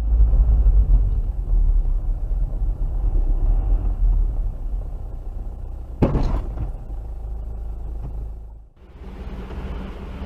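Low, steady rumble of a car's cabin as picked up by a dash camera, with one sharp knock about six seconds in. Near the end the rumble dips briefly and resumes at a lower level.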